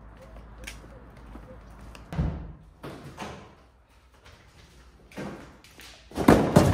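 A few sudden thuds and knocks. One comes about two seconds in, lighter ones follow, and the loudest pair comes near the end.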